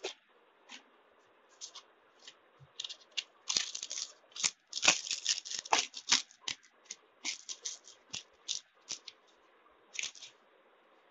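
A sheet of P120 silicon carbide waterproof abrasive paper being creased and torn into quarters by hand: a run of stiff, crackling rustles and tears, busiest in the middle and thinning out toward the end.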